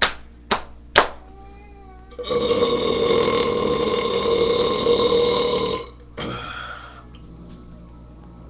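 A long, loud burp lasting about three and a half seconds, starting about two seconds in, with a shorter burp-like sound just after it. Three sharp clicks come in the first second.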